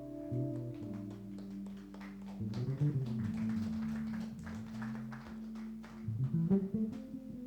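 Live small-group jazz: a plucked bass line moving under held keyboard chords, with light drum and cymbal touches.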